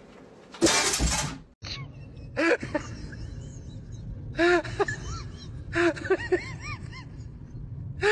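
A sudden loud crash, like something smashing. Then, over a low steady hum, come short high calls that rise and fall in pitch, several in quick groups.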